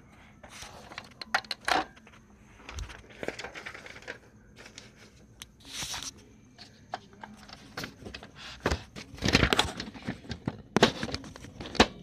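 Ricoh SP 200 monochrome laser printer printing a self-test page: irregular mechanical clicks and rattles as the sheet feeds through, with a louder rustling burst about nine seconds in.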